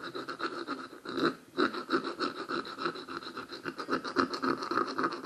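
Small hand file scraping back and forth along the edge of a two-stroke scooter piston's skirt, about four quick strokes a second with a short pause about a second and a half in. The edge has been rounded off, so the strokes now sound different from the sharp, unfinished edge.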